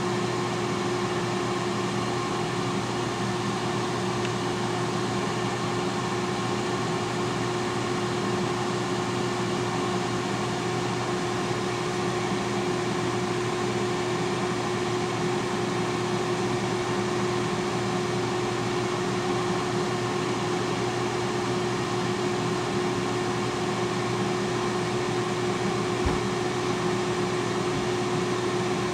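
T-fal air fryer running at 180°, its fan blowing a steady whoosh with a constant hum.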